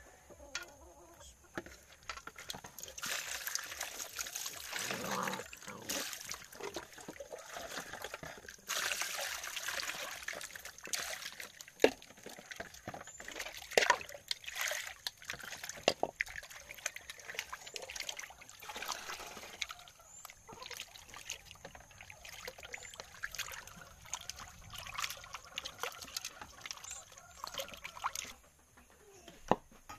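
Water sloshing and splashing in a metal basin as hands scrub and rinse snail meat to clean it, with scattered sharp knocks against the basin.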